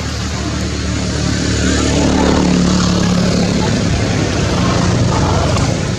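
A motor engine running with a steady low hum, growing louder through the middle and dropping off near the end, as of a vehicle passing close by.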